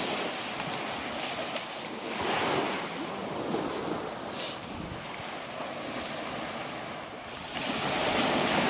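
Wind buffeting the microphone over the wash of small waves breaking on a sandy beach, swelling louder about two seconds in and again near the end.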